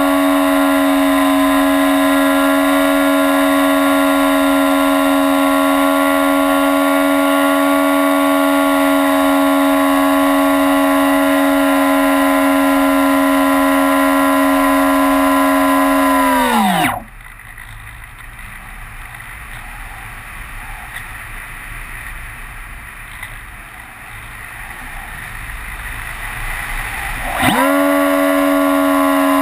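Model airplane's electric motor and propeller running with a steady high-pitched whine, then winding down with a falling pitch a little past halfway as the throttle is cut. About ten seconds of wind noise follow while it glides, then the motor spins back up with a rising whine near the end.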